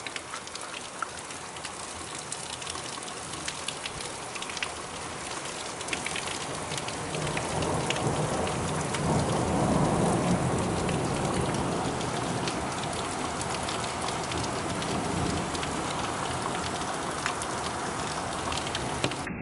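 Heavy rain falling, with many small drop ticks close by, under a low rumble of thunder that swells about eight seconds in and dies away slowly.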